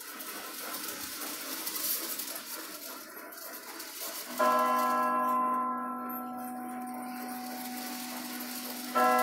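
A bell struck twice, about four and a half seconds apart, each strike ringing on and slowly dying away, over a faint hiss in the first few seconds.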